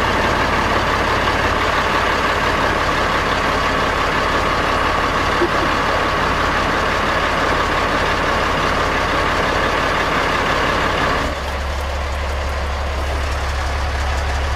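Heavy truck engine idling steadily, heard from inside the cab. About eleven seconds in the sound drops slightly and leaves mostly the deep rumble.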